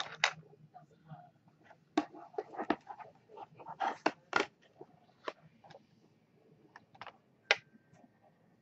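Makeup brushes and palette being handled close to the microphone: irregular small clicks and taps, busiest in the middle, with one sharper click about seven and a half seconds in.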